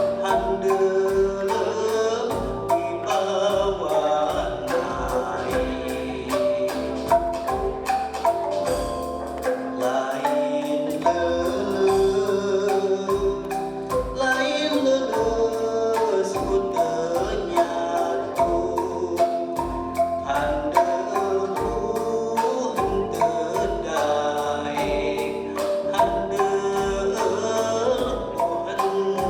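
Calung renteng, a row of tied bamboo slats, struck in quick, rhythmic, interlocking patterns within an ensemble piece, over a steady low beat.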